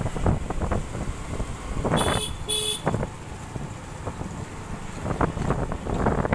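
Gusty wind rumbling on the microphone, with two short high-pitched toots about two seconds in, half a second apart.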